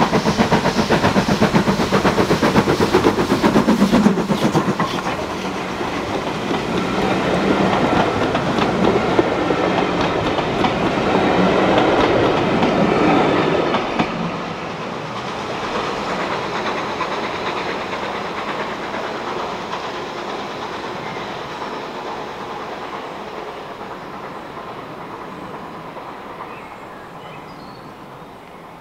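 Steam-hauled passenger train headed by a BR Ivatt tank locomotive passing by, its wheels clattering over the rail joints. It is loudest in the first few seconds, then fades steadily as the train moves away.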